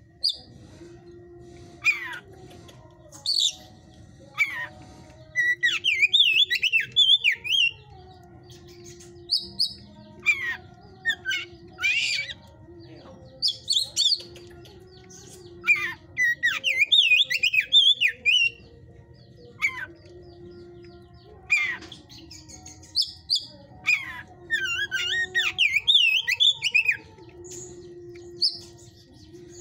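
Oriental magpie-robin (kacer) singing in a cage: loud, varied phrases of quick whistled slurs and harsh scratchy notes, coming every second or two, with longer rapid warbled runs three times. This is the aggressive, fired-up 'hot-type' song that bird keepers prize.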